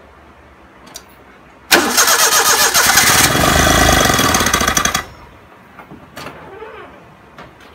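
A 1991 Daihatsu Charade's carburetted engine is cranked by the starter from about two seconds in. It catches, runs for little more than a second, then dies abruptly. The engine will not keep running, and the owner is checking it for a vacuum leak.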